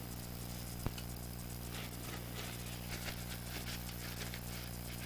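Shop rags rubbing and scrubbing oily parts in short, scattered rustles, with one sharp click about a second in, over a steady low hum.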